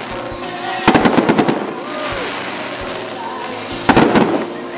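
Fireworks going off in crackling bursts, one cluster about a second in and another near the end, over music and crowd noise.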